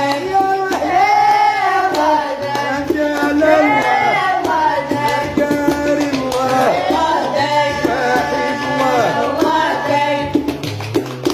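Two young women singing a Gnawa song over a guembri, a three-stringed bass lute plucked in a repeating low line. Sharp percussive clicks join near the end.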